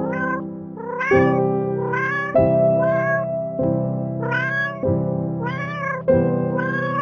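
A kitten meowing over and over, about seven short meows roughly a second apart, each rising then falling in pitch. Background music with sustained chords plays underneath.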